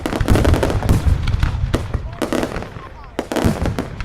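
Daylight fireworks going off in quick succession: a dense string of loud bangs and crackles that thins briefly past the middle, then a strong bang near the end.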